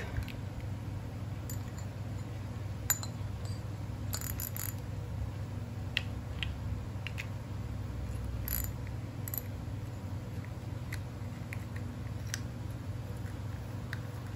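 Scattered small metallic clicks and taps from handling a Daiwa Freams KIX 2500 spinning reel as its spool is fitted back onto the shaft and the front drag knob is worked, over a low steady hum.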